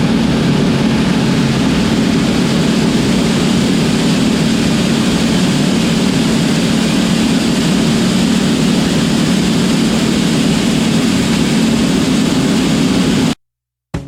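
Combine harvester running steadily in corn: a loud, even engine and machinery drone that cuts off suddenly near the end.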